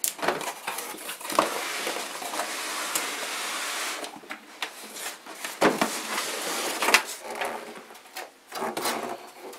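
A sheet-metal furnace filter rack being slid out of its cardboard box: cardboard scraping and rubbing against metal for the first few seconds, then a few sharp knocks and clunks as the rack is lifted clear.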